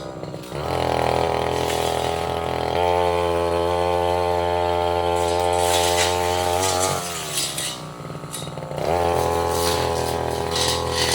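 Tasco 33 Pro two-stroke brush cutter revving to full throttle and holding there, dropping back toward idle about seven seconds in, then revving up again near the end. Scattered sharp clicks and cracks come in while it is revved up, as the blade strikes saplings and small roots.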